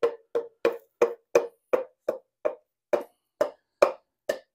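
Wooden hammer handle tapping a piston down into a cylinder bore of a Ford 200 cu in inline-six block, about three evenly spaced knocks a second, each with a short hollow ring.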